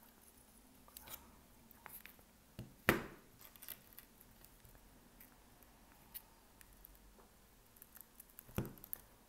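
Hand tools chipping and picking at the broken back glass of an iPhone 13: scattered light clicks and taps, with two sharper snaps, one about three seconds in and one near the end.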